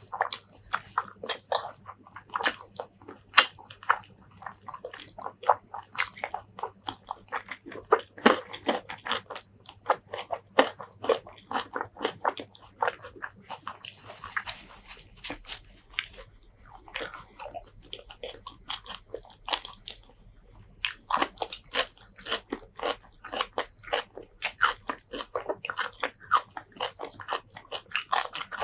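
Close-miked eating: a person chewing with many wet mouth clicks and crunches. About halfway through, the chewing pauses for a soft rustle as a tissue is wiped across the mouth.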